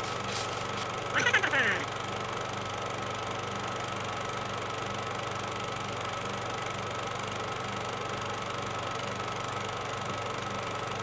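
Steady whirring hum of an old film projector running, as a sound effect under an old-film-styled logo sequence. About a second in, a short louder sound effect with a sharply falling pitch cuts across it.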